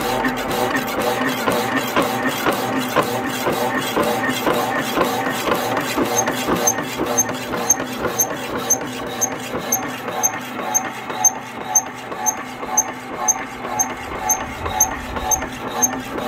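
Viebahn power hacksaw running, its blade stroking back and forth through a round metal bar under coolant, with an even rhythmic rasp and a motor hum beneath. The saw cuts on the draw stroke and lifts the blade on the forward stroke. Sharp regular clicks come through clearly from about six seconds in.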